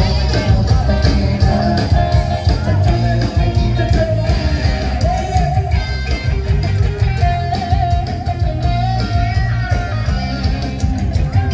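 Live band music with a steady beat: electric guitar, bass and drums, with a voice singing the melody.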